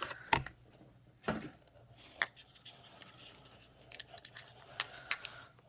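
Handling of small jars of nail glitter and their packaging: scattered clicks and knocks, a few louder ones spaced about a second apart.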